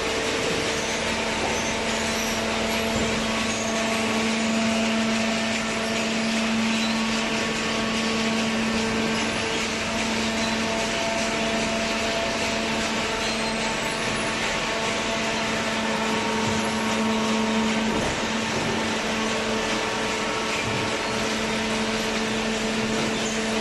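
Hydraulic cardboard baler's motor and pump running, a steady machine hum with a constant low tone and a noisy whirr.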